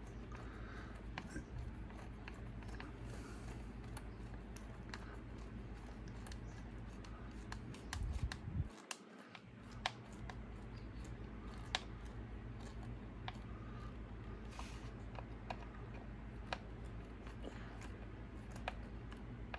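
Light handling clicks and scraping as screws are driven by hand into soft RPM plastic nerf bars on an RC truck chassis, over a low steady hum, with a few louder knocks about eight to twelve seconds in.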